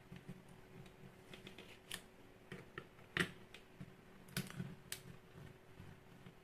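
Small screwdriver clicking and scraping against the screws and plastic housing of a headlamp as the back cover is unscrewed, with light handling of the plastic case: scattered faint ticks, the sharpest a little after three seconds in.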